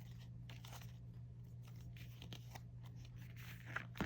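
Paper and plastic rustling and crinkling as an album's photo book and inserts are handled and leafed through, with a sharp click near the end, over a low steady hum.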